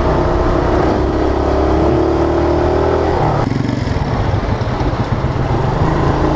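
Small motorcycle's engine running under way, its pitch rising gently, then about three seconds in the sound changes abruptly to a lower, steadier engine note.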